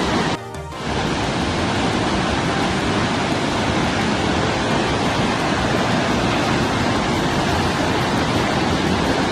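Swollen river in flood, its water rushing in a loud, steady roar. The sound drops briefly about half a second in, then carries on unchanged.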